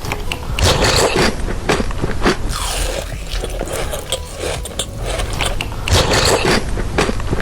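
Close-up eating sounds: a person biting and chewing food, with many sharp, irregular crunches.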